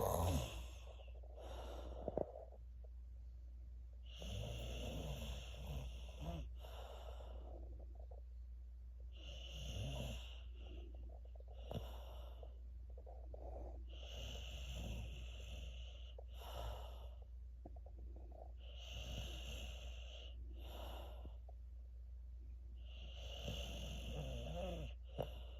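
A child snoring in sleep: a long raspy snore followed by a shorter breath, the cycle repeating about every five seconds, over a steady low hum.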